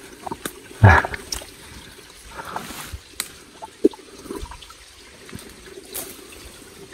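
Footsteps crunching through dry leaf litter and twigs, with plants brushing against the walker while climbing a steep forest slope; the loudest crunch comes about a second in, with smaller cracks and rustles after.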